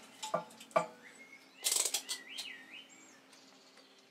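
Sharp clicks and handling noise as test-lead probes are fitted onto the wires of the air compressor motor's thermal cutout switch, with a short rattle of quick clicks a little over a second in. A brief wavering chirp follows, over a faint steady hum.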